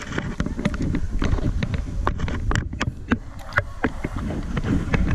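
Irregular clicks and knocks from climbing hardware and wooden footholds on a treetop rope course, over a steady low rumble of wind buffeting the microphone.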